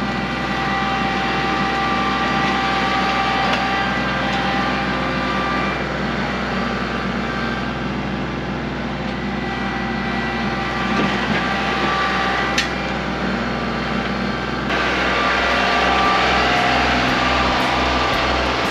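Kubota L3901 tractor's three-cylinder diesel engine running steadily under work while the loader bucket moves and levels dirt. A single sharp click comes about twelve seconds in, and the engine gets louder with a changed note about fifteen seconds in.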